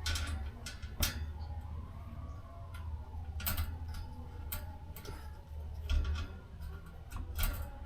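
Scattered clicks and knocks of ceiling fan parts being handled and fitted together during installation, over a steady low rumble.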